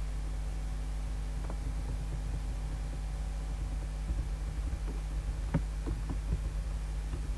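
Steady low electrical hum, with soft scattered clicks and taps that come more often in the second half.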